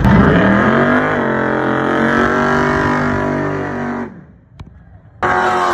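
Car engine revving up and held at high revs during a tyre-smoking burnout. The sound cuts off abruptly about four seconds in and starts again sharply about a second later.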